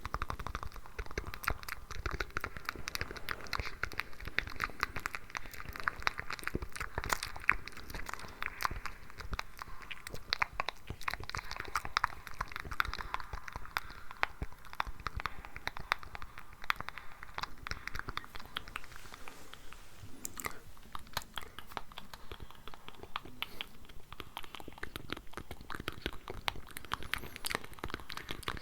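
Layered ASMR mouth sounds: many wet clicks and smacks overlapping, close to the microphone, thinning out about two thirds of the way through.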